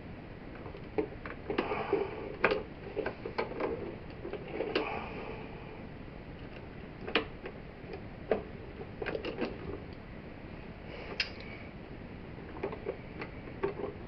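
Small irregular clicks and scrapes of a screwdriver and fingers on a wall light switch's metal terminal screws and wires as the screws are loosened and the wires worked free. A busy cluster in the first few seconds, then scattered single clicks.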